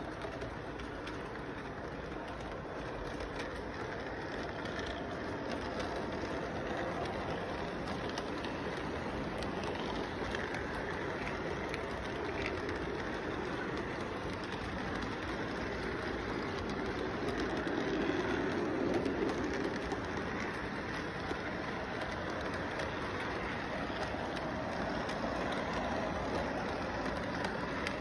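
Toy electric model train running on its track: a steady rolling rumble and clatter of wheels as the freight cars pass, swelling briefly about two-thirds of the way through.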